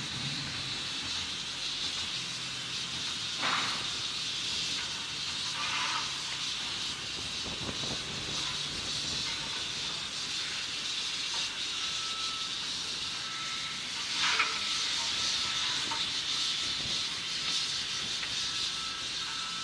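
WD Austerity 2-8-0 steam locomotive standing with a steady hiss of escaping steam, broken by a few short sharp sounds, the loudest about fourteen seconds in.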